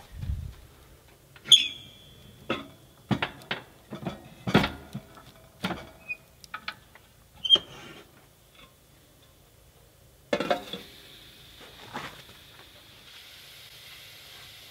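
Firewood being loaded into a wood-burning stove: a string of irregular wooden knocks as split logs go in, with a couple of sharp metallic clinks from the stove's iron door. Another short clatter comes later, then a faint steady hiss near the end.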